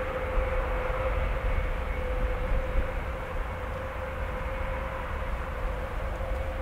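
Airbus A400M's four TP400 turboprop engines running steadily as the aircraft rolls out on the runway after landing: a continuous propeller drone with a steady humming tone and a low rumble.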